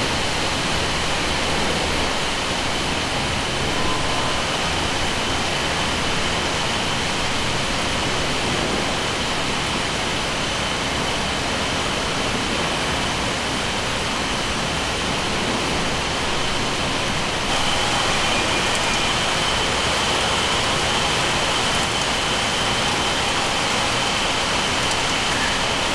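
Textile mill's yarn-winding machines running: a steady, dense noise with a faint high whine held throughout. It steps up slightly in level about two-thirds of the way through.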